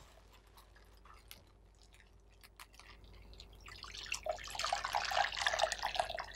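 Hot ham juices pouring from a plastic oven bag into a bowl. First come faint drips and small clicks, then about four seconds in it builds into a steady splashing pour.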